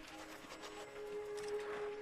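Background music with a steady held note.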